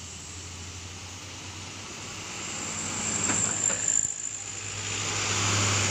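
Road traffic: a truck approaching, its engine hum and tyre noise growing steadily louder as it nears.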